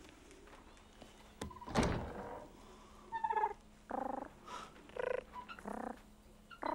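A dull thunk about a second and a half in, then a run of five or six short, squeaky bird-like calls.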